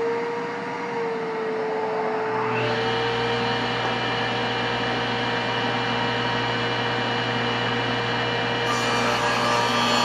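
Woodworking power tool running at speed with a steady motor tone, and from about two seconds in its cutter biting into walnut, adding a rough, louder cutting noise.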